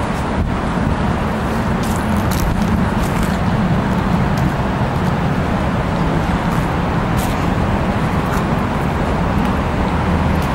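Steady low rumble of outdoor city noise, with no distinct events standing out.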